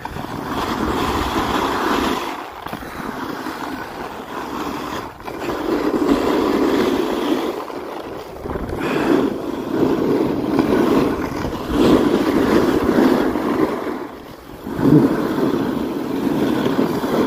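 Edges scraping and hissing over snow on a downhill run, swelling and fading every couple of seconds with each turn, with wind rushing over the microphone.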